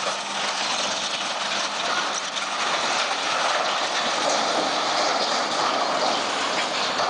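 A tall wooden and sheet-metal structure collapsing as a crane pulls it over: a long crashing and clattering of breaking timber and metal, loudest in the middle of the collapse.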